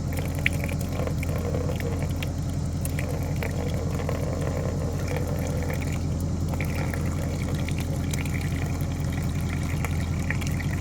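Pressure washer running steadily, its water jet hissing and splashing against an engine to wash off flood mud.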